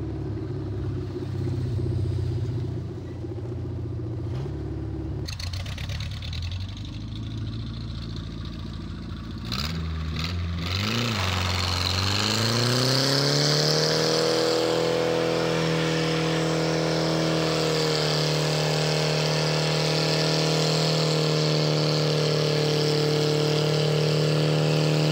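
Volga-based race car's engine running, its revs rising and falling as it drives. About eleven seconds in it revs up and holds high and steady in a burnout, the spinning rear tyre adding a loud hiss.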